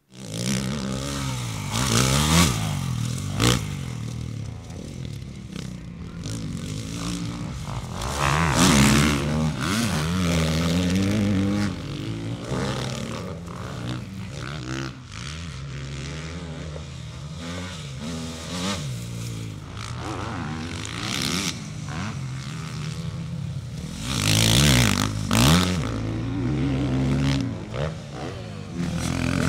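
Motocross dirt bike engines being ridden hard on a dirt track, revving up and down with throttle and gear changes. A few louder rushes come about two, nine and twenty-five seconds in.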